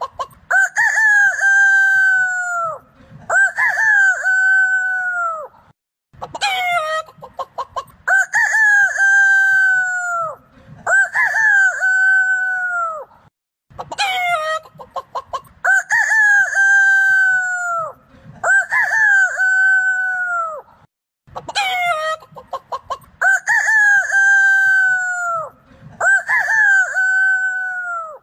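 Chicken-sound ringtone looping: a quick burst of clucks, then two long drawn-out crowing calls. The pattern repeats about every seven and a half seconds, four times over.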